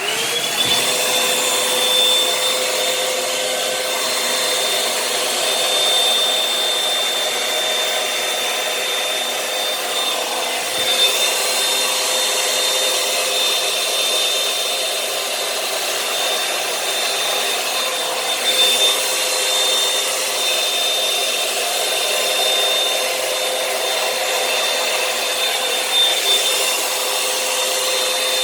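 Revlon One-Step hair dryer and volumizer (hot-air brush) switching on and spinning up, then running steadily with a high motor whine over a rush of air. Its loudness swells slightly now and then as it is worked through the hair.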